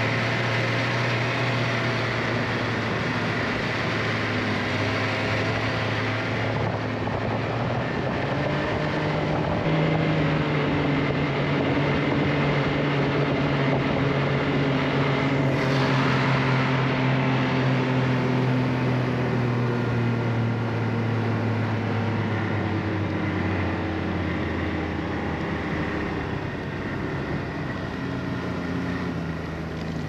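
A vehicle engine running steadily while driving. Its pitch steps up about ten seconds in, holds, then eases down over the last several seconds.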